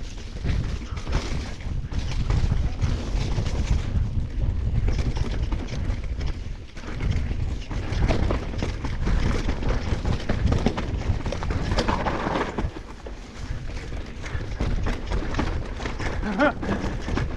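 Mountain bike ridden fast down a rough dirt trail: wind buffeting the microphone as a loud, uneven rumble, with tyres and the bike rattling and knocking over the ground.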